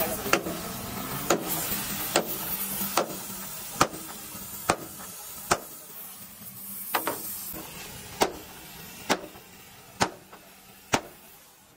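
Hammer striking metal in a steady rhythm, about a dozen sharp blows a little under a second apart, with a short gap before a double strike past the middle. A background hiss fades away toward the end.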